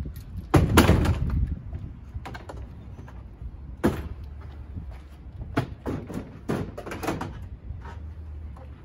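Clanks and knocks of gear being handled on a work truck: one loud clattering scrape about half a second in, then several short lighter knocks, over a low steady rumble.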